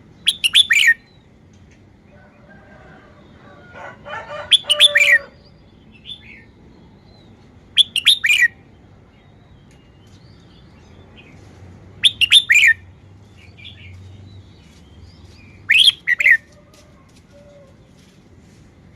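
Red-whiskered bulbul singing short whistled phrases, five in all, one about every four seconds. Quieter lower-pitched chatter comes a few seconds in.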